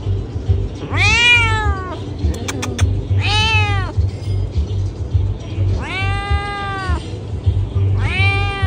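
A tabby-and-white domestic cat meowing loudly, four drawn-out meows that each rise and fall in pitch, the third the longest. Background music with a low beat runs underneath.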